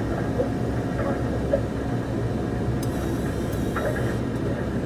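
Diesel engine of a KATO MR-350R rough-terrain crane running steadily, heard from inside the operator's cab as a low drone, with a couple of faint clicks.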